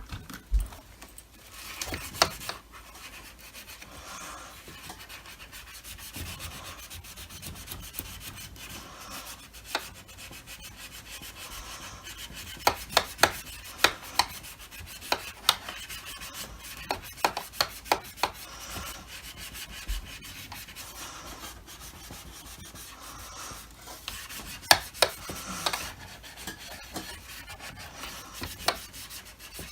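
Steady scrubbing of a sponge on the plastic housing of a Dyson DC25 vacuum cleaner, rubbing off paint scuffs, with scattered sharp clicks and taps, several in a row in the middle and again near the end.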